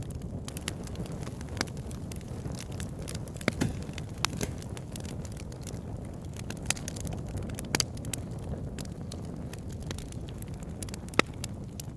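Campfire of wood logs burning over a steady low rumble, with scattered sharp crackles and pops, the loudest a little after 3 s, near 4 s, near 8 s and about 11 s in.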